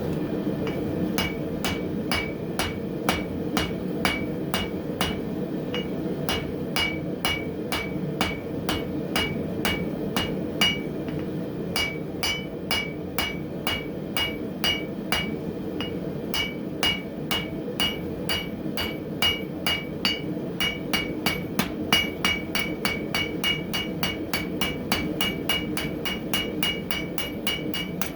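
Hand hammer striking hot coil-spring steel on an anvil in a steady run of blows, about two a second and quickening to nearly three a second in the second half, each strike with a short ringing tone from the anvil. It is forging the bar into an octagon by working its corners. A steady rushing noise runs underneath.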